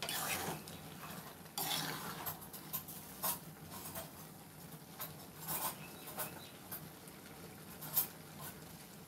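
Metal spatula stirring wet noodles in an aluminium kadai, with irregular scrapes and clinks against the pan.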